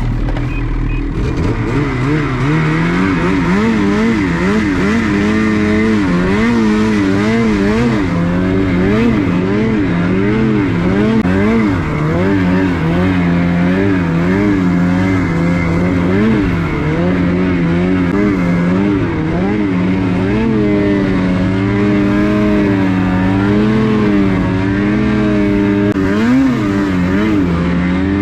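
Snowmobile engine running under way on a snow trail, its pitch rising and falling over and over as the throttle is worked.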